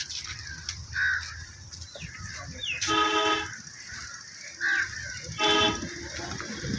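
A vehicle horn honks twice, about two and a half seconds apart: a half-second honk and then a shorter one, each a steady, even-pitched tone. Short bird chirps come between the honks.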